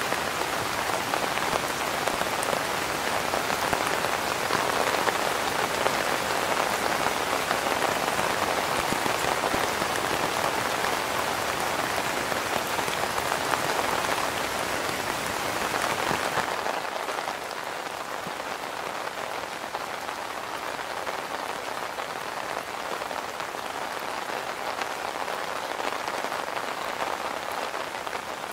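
Steady rain falling on a tarp shelter and the grass and trees around it, a dense even hiss of drops. About two-thirds of the way through it becomes quieter and thinner.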